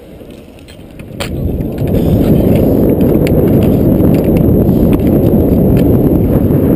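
Inline skate wheels rolling on rough asphalt, a loud steady rumble that builds from about a second in, as the skater carrying the camera speeds up. A sharp click comes just before the rumble builds.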